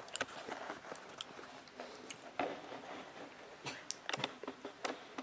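Scattered light clicks and soft rustling from a handheld camera being handled and swung around, with a small cluster of clicks about four seconds in.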